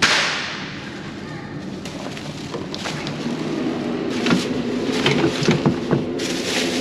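Bags going into a glass-door display refrigerator: plastic rustling and short knocks against the wire shelves, over a steady low hum. A sudden hiss at the very start fades within a second.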